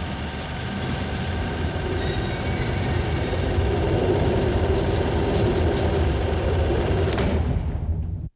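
Sound effect of an animated logo ident: a loud, steady rumbling drone with hiss over the top. It starts abruptly and cuts off sharply near the end.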